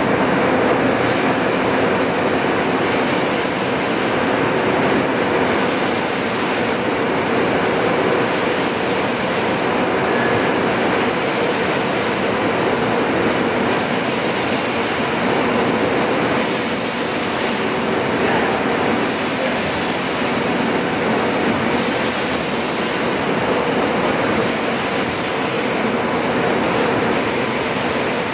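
MGI JetVarnish 3D digital embellishment press running a gold-foil embossing job: a steady mechanical hum with a high hiss that swells and fades every two to three seconds.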